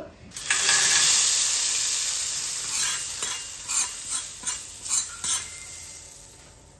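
Hot-oil tempering of mustard seeds and curry leaves poured into a pot of bisi bele avalakki, sizzling loudly from about half a second in and slowly dying away. A ladle then stirs the pot, knocking against it several times.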